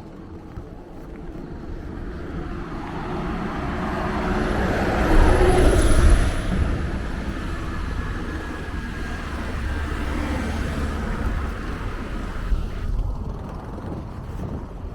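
A motor vehicle passing close by. It builds up steadily, is loudest about five to six seconds in with its pitch dropping as it goes past, then fades away.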